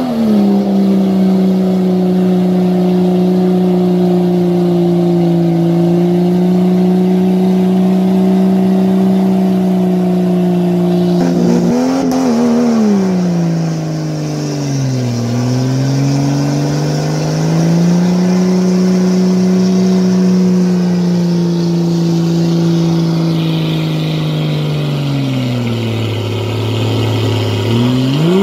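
Off-road SUV's engine held at high revs as it tries to drive out of a deep mud pit, wheels spinning in the mud. The note stays high and steady for about ten seconds, then drops and climbs back twice, sinks low near the end and picks up again.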